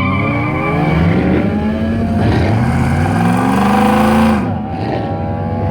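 V8 cars accelerating hard at full throttle, the engine notes climbing in pitch and dropping back with each upshift, more than one engine heard at once. The sound dips briefly about four and a half seconds in, then the climbing engine notes carry on.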